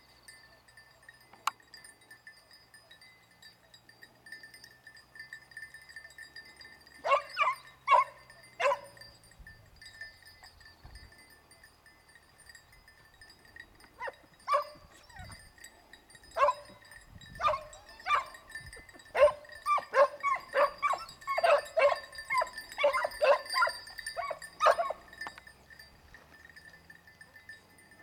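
A pack of hare-hunting hounds giving tongue on a hot hare scent, in short barks and yelps. Three barks come about a quarter of the way in, then scattered barks, then a fast run of barking near the end.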